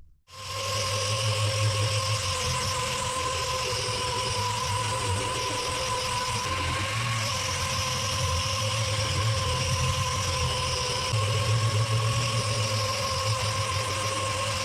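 Dual-action sander starting up and running steadily, sanding cured resin primer with a 120-grit disc.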